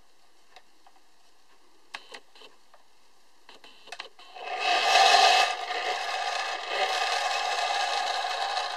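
A few light clicks and taps from handling the tin toy ship, then about halfway through its friction motor starts up with a loud whir, the spinning flywheel and gears running on steadily.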